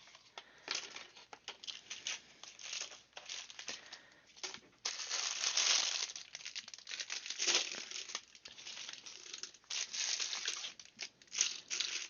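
Plastic packaging crinkling and rustling as it is handled in irregular bursts, with small clicks and knocks, loudest about halfway through and again near the end.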